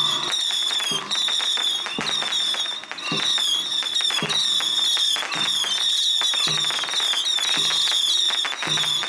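A long string of firecrackers going off in quick, dense crackling pops, with a shrill, wavering high tone sounding over them.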